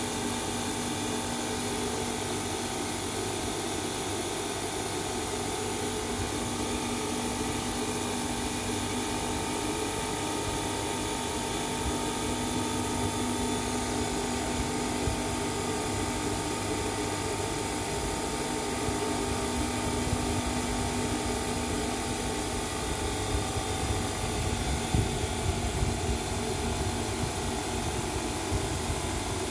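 Homemade 220 V disc sander, a 20 cm sanding disc driven by an electric motor, running steadily with nothing against the disc: a constant mechanical whir with a steady hum, and a few brief clicks near the end.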